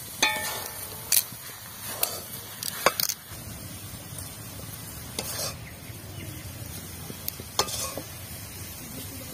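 A metal ladle scraping and knocking against an aluminium kadai as thick, sticky carrot halwa is scooped out into a bowl, with a series of sharp clinks over a low steady background.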